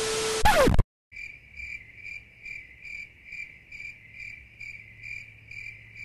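A loud burst of TV static with a falling electronic tone cuts off within the first second. Then a cricket chirps steadily, about twice a second, over a faint low hum: the comic 'crickets' awkward-silence sound effect.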